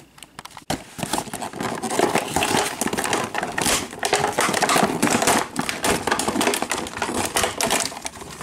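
Clear plastic blister packaging crinkling and crackling as a toy figure is worked loose from it by hand, starting about a second in and going on as a dense, irregular rustle.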